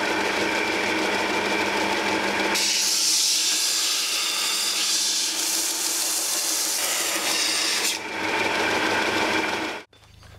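Small belt sander running with a steady motor hum, grinding a bevel on a 5160 leaf-spring steel cleaver blank. From about two and a half seconds in to about eight seconds the steel is pressed to the belt and a harsh grinding hiss rises over the motor, then the sander runs free and cuts off abruptly near the end.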